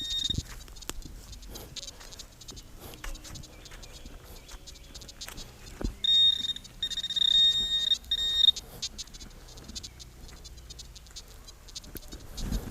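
XP Deus metal detector sounding its high, steady target tone in three short beeps about six to eight and a half seconds in, the sign of metal in the ground, with a few faint knocks around it.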